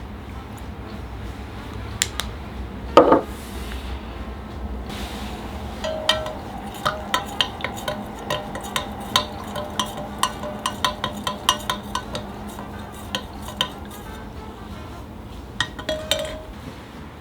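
A utensil stirring in a bowl, tapping and clinking against its side about twice a second, with one louder clink early on and a few more near the end.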